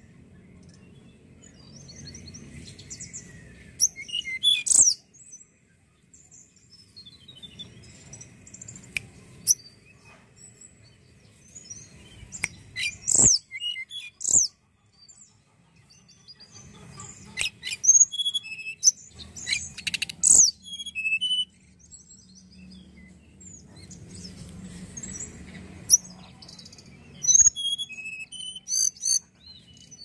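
Caged male hill blue flycatcher (tledekan gunung) singing in phrases of quick, high, sharp notes and trills, with pauses of several seconds between them.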